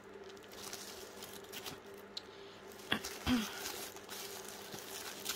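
Soft rustling and crinkling of tissue paper as a tissue-wrapped gift is handled, with a light knock about three seconds in.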